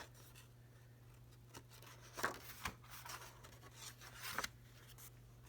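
Faint rustling and rubbing of paper as a picture book's pages are handled and turned, with a few short scrapes about two seconds in and again near the end, over a low steady hum.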